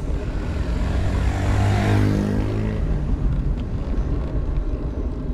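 A motor vehicle passes close by: its engine note swells and fades, loudest about two seconds in, over a steady low rumble.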